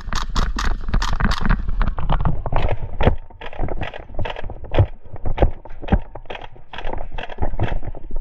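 Footsteps moving quickly over rough ground with rustling, then slowing to a steadier pace of about two steps a second.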